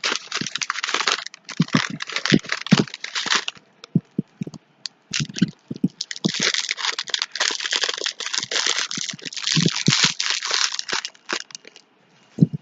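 Paper wrapping being crinkled and pulled off a small boxed figurine by hand, in two long spells of dense crackling with a few scattered crackles between and one sharp click near the end.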